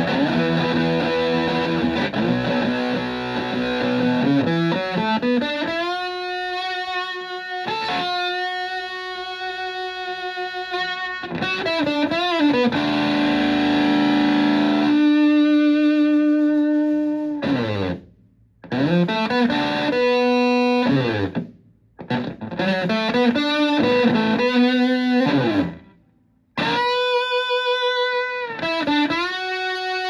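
Les Paul electric guitar through a Tone Bender MKI-style fuzz pedal into a Fender Twin Reverb-style amp, playing fuzzy chords at first and then long sustained single notes with string bends and sliding pitch drops. The notes stop briefly a few times in the second half.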